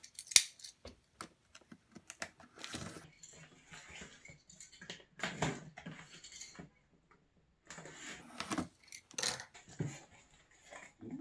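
Packing tape on a cardboard box being slit and the box flaps pulled open: irregular scrapes, clicks and cardboard rustling, with a short pause about seven seconds in.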